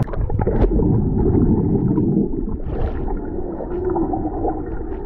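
Swimming-pool water heard from underwater through a submerged camera: a muffled, low rushing and bubbling churn from swimmers moving nearby, loudest in the first two seconds.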